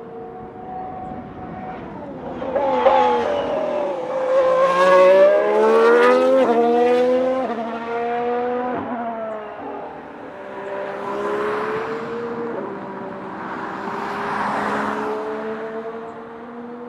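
Ferrari SF71H Formula 1 car's 1.6-litre turbo V6 accelerating hard, its pitch climbing and then dropping sharply at each of several quick upshifts, loudest about five to seven seconds in. Farther off, the engine note rises and falls twice as the car carries on around the circuit.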